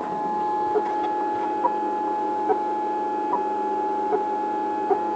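MakerBot Thing-O-Matic 3D printer running a print: its stepper motors give a steady whine, with a short tick about every 0.8 s.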